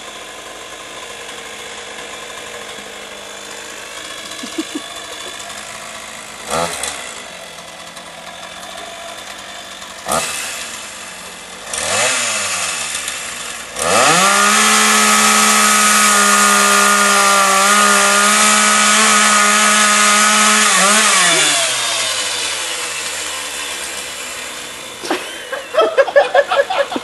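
Two-stroke chainsaw idling, blipped up a few times, then held at high revs for about seven seconds before winding back down to idle. A run of short quick bursts of sound comes near the end.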